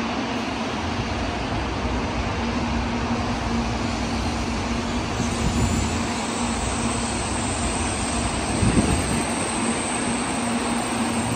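Shinkansen high-speed train running, a loud steady rushing roar with a low hum under it and a brief knock about nine seconds in.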